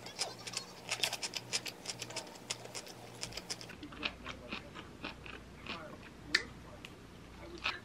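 Close-up eating sounds: a quick run of small crisp crunches from chewing bean sprouts and stir-fried pork, with light clicks of metal chopsticks and spoon, and one sharper click about six seconds in.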